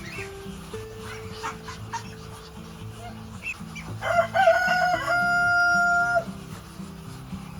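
A rooster crows once, starting about four seconds in, wavering at first and then ending on a long held note, over steady background music. Short clucks and chirps come before it.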